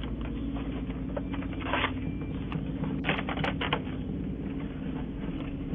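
Doorknob and latch being jiggled and turned by hand: irregular metallic clicks and rattles, thickest around two and three seconds in, over a steady low hum, heard through a doorbell camera's microphone.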